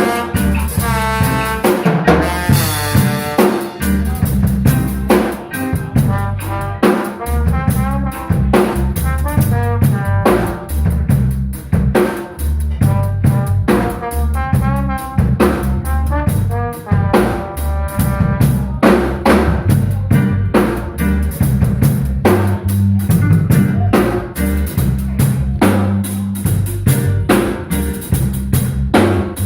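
Live instrumental band playing, with the drum kit's snare, bass drum and rimshots driving the beat under melodic instrument lines.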